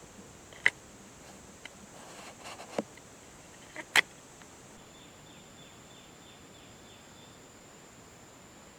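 Forest ambience: a steady high insect buzz, with three sharp snaps or clicks and some rustling in the first half. Halfway through the buzz thins, and a quick run of short chirps follows.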